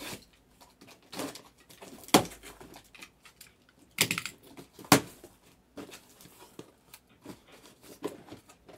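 Handling noises: a series of separate knocks and clicks, the sharpest about two, four and five seconds in, with faint rustling between them.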